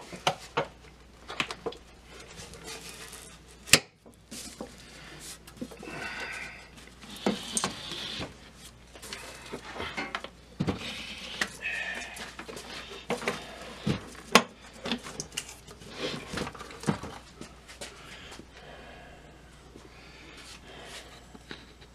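Scattered knocks, clunks and scraping as a Zenith B600 Transoceanic radio's cabinet is stood on end and worked by hand to pull the chassis out. There is a sharp knock about four seconds in and another about fourteen seconds in.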